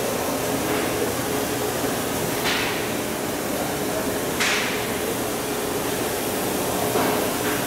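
Oxy-fuel gas welding torch flame hissing steadily while brazing steel pipe with brass filler rod, swelling briefly into a sharper hiss a few times, with a steady hum underneath.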